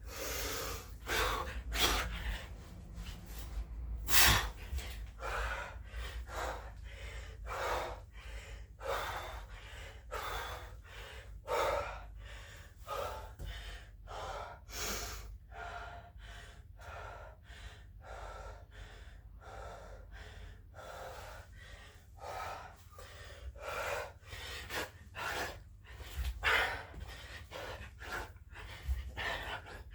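A man breathing hard and fast from the exertion of burpees, a quick run of loud, gasping breaths in and out.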